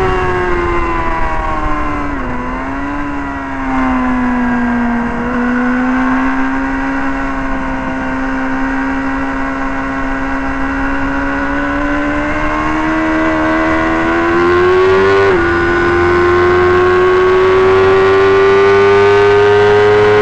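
Sport motorcycle engine at racing speed, heard from on board with wind rush on the microphone. Its pitch drops sharply about two seconds in under braking and downshifting, then holds lower through a long corner. It climbs under acceleration, with a quick gear change about three quarters of the way through, and stays high on the straight.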